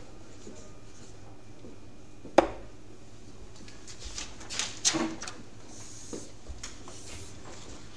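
Steel-tip dart striking a Winmau Blade bristle dartboard: one sharp thud, then a few softer knocks about two seconds later.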